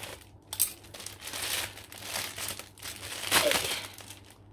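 Plastic parcel bag crinkling and rustling as it is cut open with scissors and the item inside is pulled out. There is a sharp click about half a second in, and the loudest rustle comes a little after three seconds.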